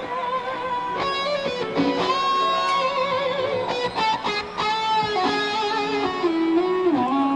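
Electric guitar played live, a slow lead melody of long held notes with vibrato and slides between them.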